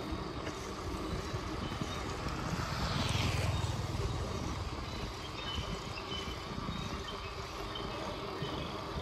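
A small motorbike approaching and passing close by: its engine rises to its loudest about three seconds in, then falls in pitch and fades. Steady wind and road noise from riding a bicycle runs underneath.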